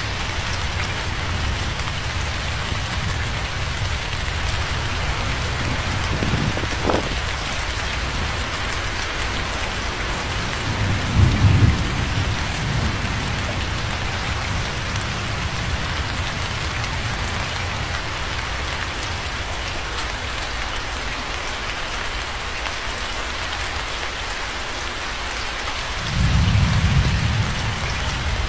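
Steady heavy rain falling on a surface, with low thunder rumbling twice, about a third of the way in and again near the end, and a brief crack a few seconds in.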